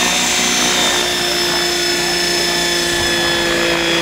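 Replica Heli Baby RC model helicopter with its engine and main rotor running steadily, the engine note dipping slightly about a second in.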